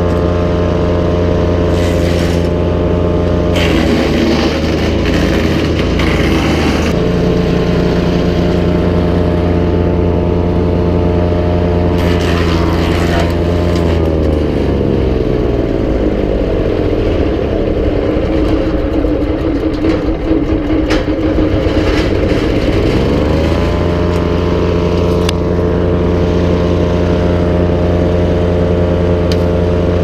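Wood chipper's gas engine running at speed while dried branches are fed in, with sharp cracking of wood being chipped. A little under halfway through the engine bogs down under the load, its pitch sagging for about ten seconds, then climbs back to full speed.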